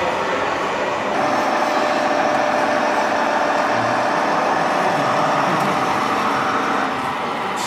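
1:14 scale RC truck running, its sound module playing a steady diesel truck engine noise that gets a little louder about a second in.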